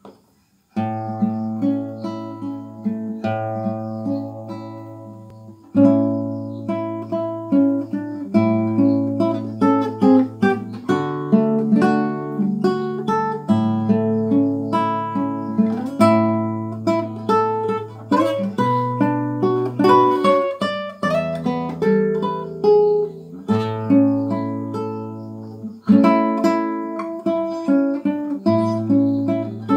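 Classical nylon-string guitar played fingerstyle: a slow Catholic hymn melody picked over held bass notes, starting about a second in.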